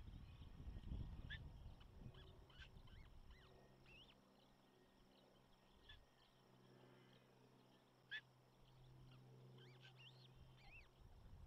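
Faint, scattered bird chirps: short high whistles that bend up and down. Wind rumbles on the microphone for the first few seconds, a low steady hum runs through the middle, and there is one sharp click about eight seconds in.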